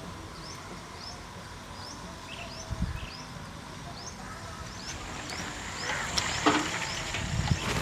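A bird calling over and over with short rising chirps, about two a second. Clicks and rustling grow louder near the end.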